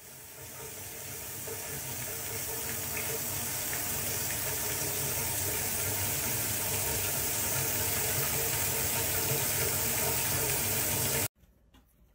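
Water running steadily from a tap into a bath basin, building a little over the first seconds and cutting off suddenly near the end.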